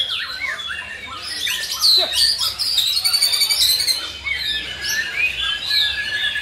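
Contest white-rumped shamas (murai batu) singing, with many rich whistled phrases, quick glides and rapid trills overlapping in a dense, continuous jumble of song.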